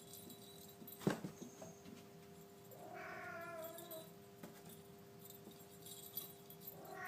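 Domestic cat meowing: one meow of about a second around three seconds in, and another starting near the end, with a light knock about a second in.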